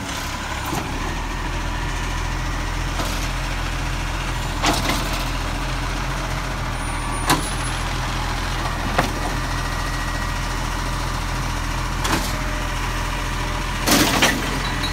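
Side-loading garbage truck's engine running steadily while its automatic arm grabs a wheelie bin and lifts it over the hopper, with a few separate clunks from the arm and a louder clatter near the end as the bin tips up.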